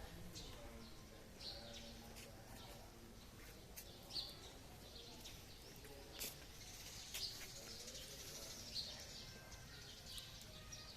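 Small birds chirping: short, high, faint calls every second or so, with a few sharper ticks among them.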